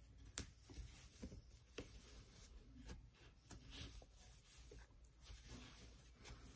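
Faint rustling and light clicks of a 7 mm crochet hook pulling chunky ribbon yarn through stitches, with a sharper click about half a second in.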